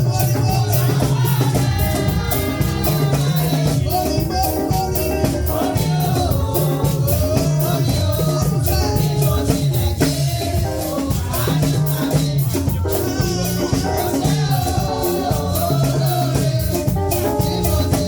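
Lively music with a steady beat, a shaker keeping time in even strokes, and singing over a strong bass line.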